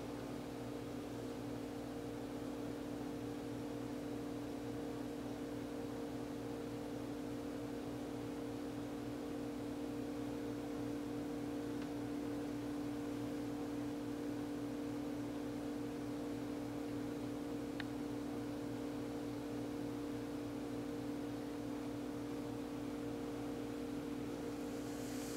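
A steady electrical or mechanical hum with two held tones over a low rumble and hiss, unchanging throughout, with one faint click about 18 seconds in.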